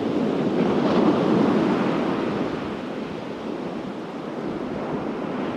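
Surf washing up the beach: a wave swells about a second in, then slowly ebbs into a steady hiss.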